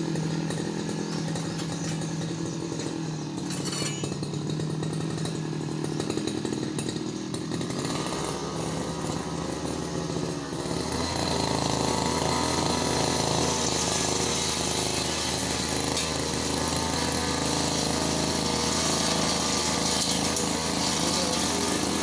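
Brush cutter engine running steadily at a lower speed, then rising over a few seconds about halfway through and held at a higher, louder speed.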